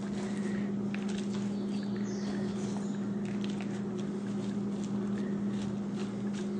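Hands pressing and working moist potting substrate around a seedling in a plastic pot, giving faint scattered crackles and rustles, over a steady low hum.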